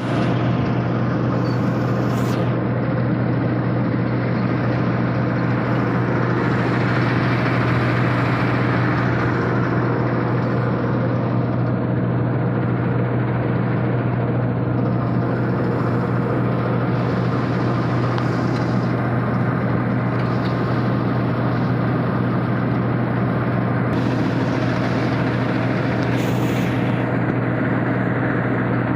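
Rice combine harvester's engine running steadily under continuous load, a strong unchanging low hum beneath dense mechanical clatter.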